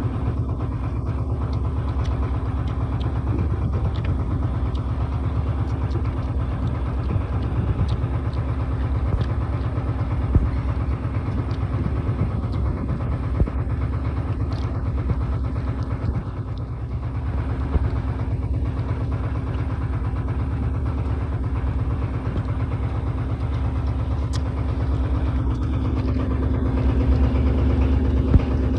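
A boat's engine running steadily, a low, even hum that grows slightly louder in the last few seconds, with a few faint clicks over it.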